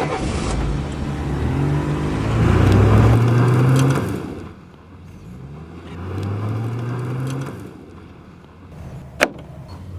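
Car engine pulling away and accelerating, its pitch rising, then rising again more faintly as it moves off. A sharp click near the end.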